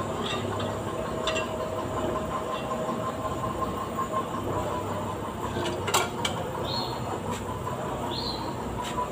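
Garage workshop background: a steady mechanical hum with a few light metal clinks, one sharper click about six seconds in, and two short high chirps near the end.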